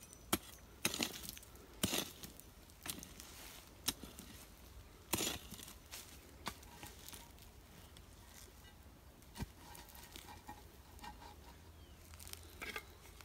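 Concrete breeze block being shifted and bedded by hand on dry soil and leaf litter: scattered gritty scrapes and knocks, with a slightly longer scrape about five seconds in.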